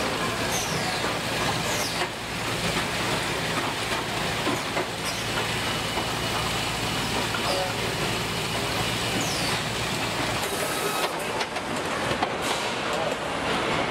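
Car assembly plant floor noise: a dense, steady wash of machinery and air noise over a low hum, with scattered clicks and a few short falling squeaks. The low hum drops out about ten seconds in and the noise turns thinner.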